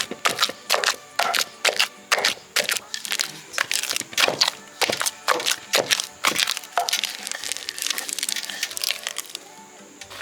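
Fresh oha leaves being torn and crushed by hand: a run of crisp snaps and crinkling a few times a second, thinning to a softer crackle near the end.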